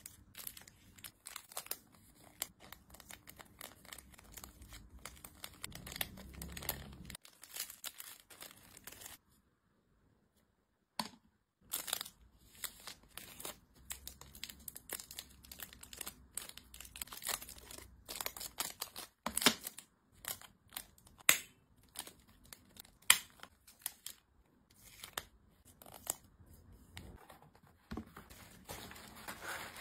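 Crinkling and rustling of clear plastic packaging bags being handled, with irregular crackles and several sharp taps. A pause of about two seconds falls near the middle.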